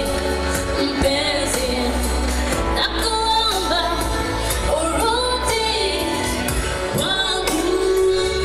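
A woman singing live into a handheld microphone over instrumental accompaniment with a steady bass and beat. She holds a long note near the end.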